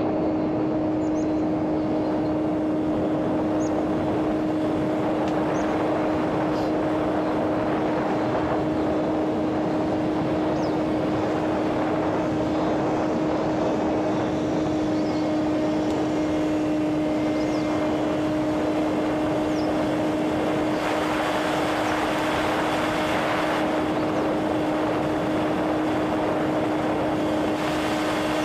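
Electric motor and propeller of a homemade radio-controlled airplane running at a steady, unchanging pitch in flight, with a rush of air beneath it.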